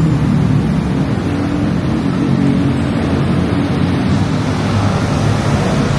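Busy road traffic close by: vehicle engines running in a steady, loud mix with a low hum.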